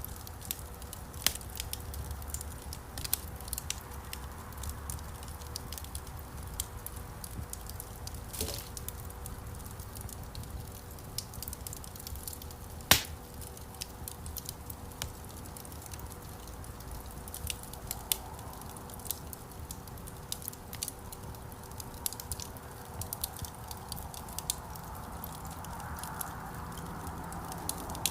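Wood campfire crackling, with frequent small pops over a low steady rumble of flame and one sharp, louder pop about halfway through. A soft hiss rises near the end.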